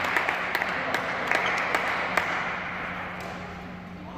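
Badminton rally: sharp clicks of rackets hitting the shuttlecock, over a hiss like scattered applause that dies down over a few seconds and a steady low hum.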